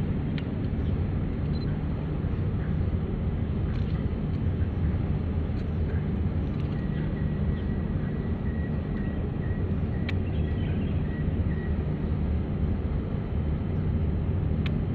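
Steady low drone of a 110 m bitumen tanker's engine as the ship passes under way, with a couple of faint clicks.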